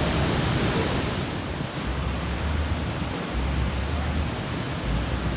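The waterfall's falling water makes a steady, even noise, with a low rumble added from about two seconds in.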